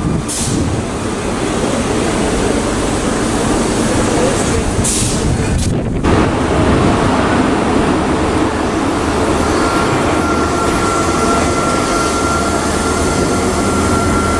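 A First Great Western High Speed Train's Mark 3 coaches running past with a continuous heavy rumble of wheels on rail. Short high hisses come about half a second and about five seconds in, and a steady thin whine joins about ten seconds in.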